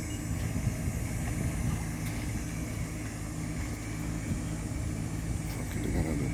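Heavy vehicle engine idling steadily, a constant low drone.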